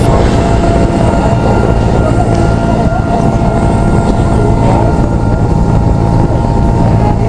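Helicopter engine and rotor noise heard from on board: a loud, steady drone with a thin, even whine above it.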